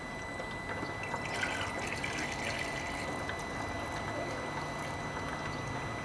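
Water poured steadily from a plastic jug through a funnel into a Peugeot 206's coolant expansion tank, trickling and splashing, as the cooling system is filled and bled of air.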